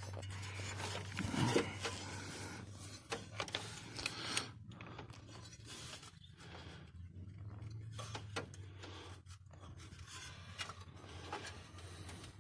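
Scattered clicks, knocks and scrapes of tools or parts being handled, louder about one and a half seconds in and again around four seconds, over a steady low hum.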